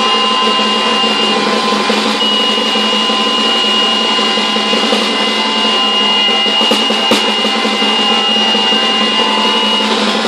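An instrumental ensemble plays a dense, buzzing drone, with a low note and many steady held tones above it, including a long high tone. There is one short click about seven seconds in.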